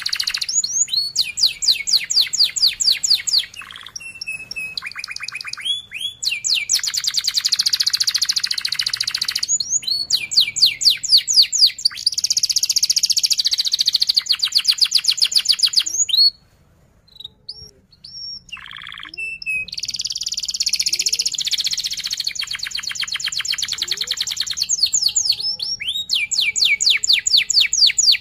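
Domestic canary singing long, rapid rolling trills of fast repeated chirps, phrase after phrase, with a pause of a few seconds a little past halfway.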